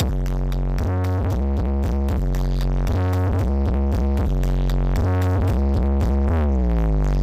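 Loud electronic dance music with heavy bass and repeated chord stabs, played through a large sound-system rig; a falling pitch sweep comes about six seconds in.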